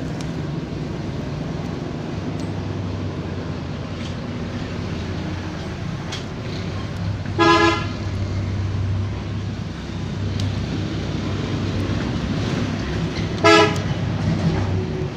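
A vehicle horn toots twice, short blasts about six seconds apart, over a steady low traffic rumble.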